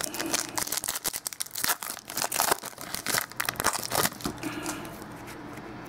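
Foil wrapper of a 2013 Elite football card pack being torn open and crinkled while the cards are handled: a dense run of quick rips and crackles that stops about four seconds in.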